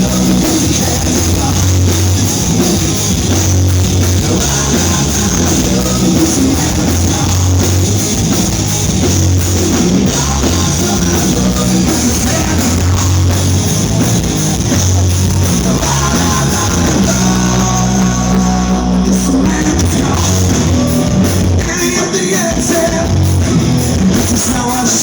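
Live rock band playing loud: electric guitar, bass and drums mid-song, with a long held note about two-thirds of the way through.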